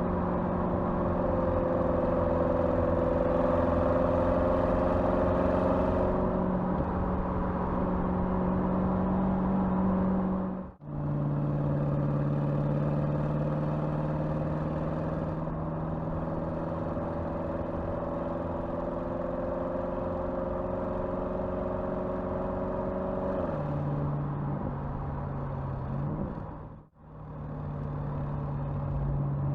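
Porsche Cayenne twin-turbo V8 running at a fairly steady engine speed, its note creeping slowly higher and then stepping down. The sound drops out briefly twice, about 11 and 27 seconds in.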